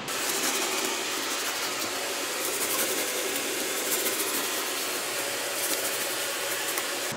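Long kitchen knife sawing slices off a crusty round loaf of bread: a steady rasping hiss with faint repeated scraping strokes.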